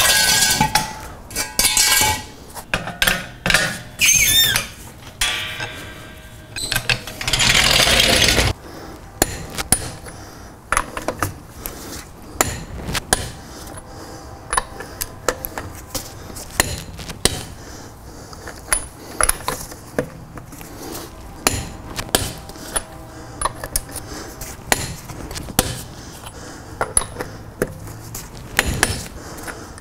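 Metal clanking and scraping as steel jack stands are pulled out from under the car, with ringing after the knocks, then a rushing noise for about a second and a half. After that come many scattered light metal ticks and clinks of hand tools at the wheel.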